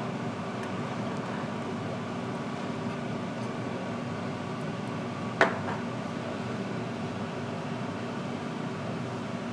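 Steady hum of a fan or ventilation unit in a small room, with one sharp clink about halfway through.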